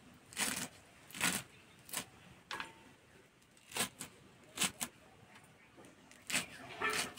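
Fresh spinach being sliced on a boti blade and handled into a stainless steel bowl: about eight short, crisp cuts and rustles at an uneven pace.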